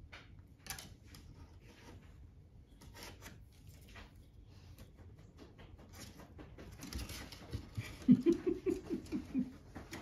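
Dry kindling sticks clicking, rattling and scraping against each other and the rope basket as a puppy noses and climbs among them. Near the end comes the loudest part: a quick run of about seven short squeaky sounds.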